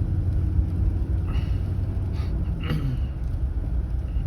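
Steady low rumble of a car driving, heard from inside the cabin, with a few brief short sounds about halfway through.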